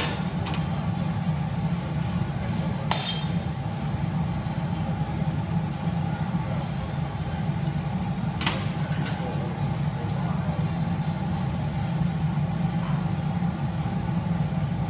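Glassblower's metal tongs, pincers and steel rod clinking against hot glass and tools as a glass horse is shaped: a few sharp clinks, the loudest about three seconds in and another about eight and a half seconds in. A steady low roar of the glass workshop runs underneath.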